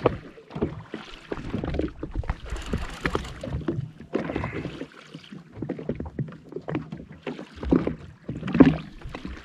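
Small waves slapping and splashing irregularly against the hull of a drifting Yamaha FX HO WaveRunner jet ski, with a couple of louder knocks near the end.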